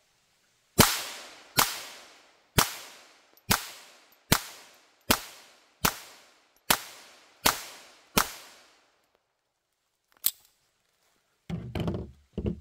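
Ruger Mark III semi-automatic rimfire pistol firing ten single shots at a steady pace, about one every 0.8 seconds, each crack trailing off in echo. A faint click follows a couple of seconds after the last shot, and a short low rustling comes near the end.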